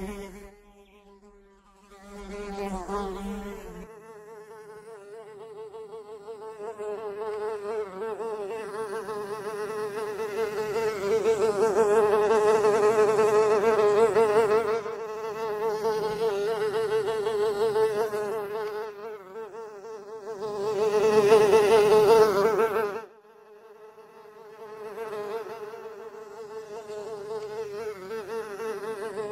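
A fly buzzing in flight: a steady droning hum of its wings that wavers slightly in pitch, swelling louder and fading as it comes close and moves away. It cuts down sharply about two-thirds of the way through, then builds again.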